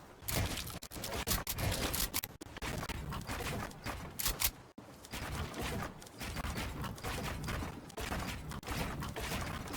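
PC parts being handled during assembly: many small clicks, taps and plastic-and-metal rattles with rustling in between, in irregular clusters.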